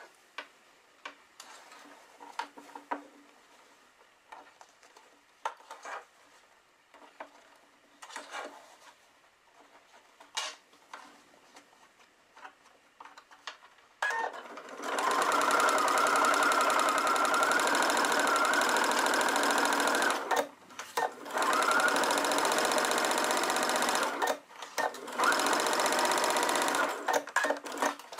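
Soft scattered clicks for the first half, then an electric sewing machine starts about halfway in and stitches steadily, a curved patchwork seam being sewn. It stops briefly twice and halts shortly before the end.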